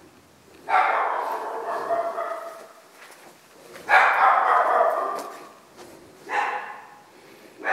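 A small dog calling out in drawn-out whining cries: two long ones of about two seconds each, then a short one near the end.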